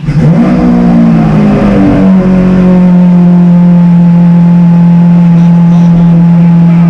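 Lamborghini Aventador's V12 engine cold-starting: it fires, flares up in revs and drops back, then settles after about two seconds into a loud, steady cold idle.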